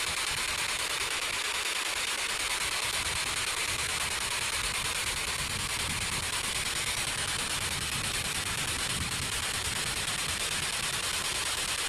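Steady hiss of radio static from a P-SB7 spirit box sweeping through radio stations.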